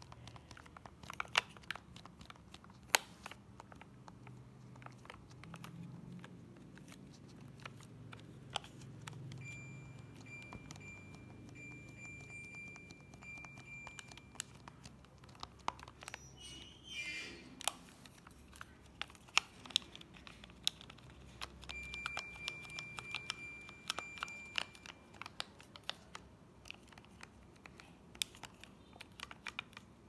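Plastic clicks of air-conditioner remote-control buttons being pressed and the remote handled, over a faint low hum. A thin steady high tone sounds twice, for about five seconds and then about three.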